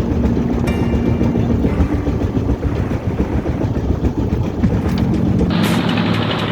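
Small boat's engine running steadily, with a dense low rumble; about five and a half seconds in the sound changes, losing some low end and gaining a brighter hiss.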